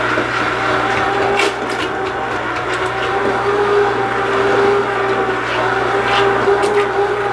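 Hand-held immersion blender running steadily in a pot of cooked tomato sauce, its motor whine holding one pitch over the wet churning of the sauce, with a few brief sharp clicks.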